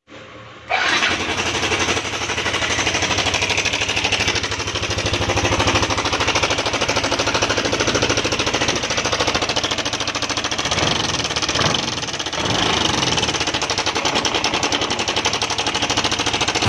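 Yamaha NMAX scooter's single-cylinder engine running with a harsh, rapid rattling clatter, setting in abruptly just under a second in: the very rough engine noise of the fault being traced.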